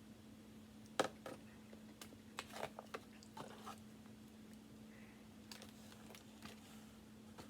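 Close-up eating sounds: chewing with scattered wet smacks and sharp clicks, the loudest about a second in, over a steady low hum.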